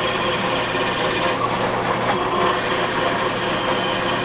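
Benchtop drill press running as a dowel-cutting bit bores down into a block of hard ash wood: a steady motor hum with the hiss of the cutting wood.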